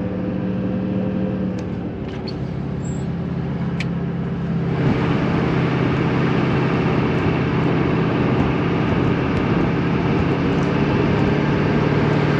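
Nodwell tracked carrier under way, its engine running steadily. About five seconds in, the engine note shifts and a louder rushing noise comes in and stays.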